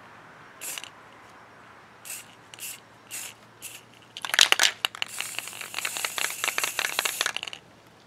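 Rust-Oleum aerosol spray paint can hissing in several short bursts, then a loud crackling rattle about four seconds in, followed by one longer spray of about two and a half seconds.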